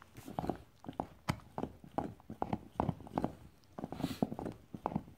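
A young yellow Labrador retriever gnawing on an antler chew: its teeth click and knock against the hard antler in an irregular run of sharp taps, a few a second.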